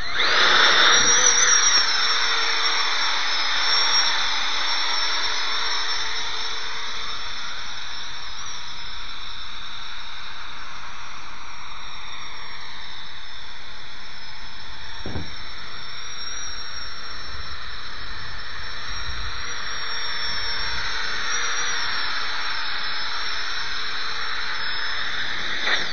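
Electric RC helicopter running its LiPo-powered motor and rotors in flight: a steady high-pitched whine whose pitch wavers and sweeps slightly as it hovers and moves. A brief low thump comes about halfway through.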